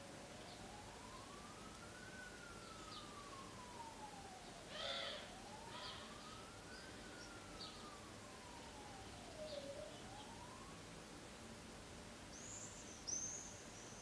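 A siren wails faintly, its single tone rising and falling slowly, about five seconds to a cycle, and it fades out after two full cycles. Short bird chirps sound over it, the loudest about five seconds in and near the end.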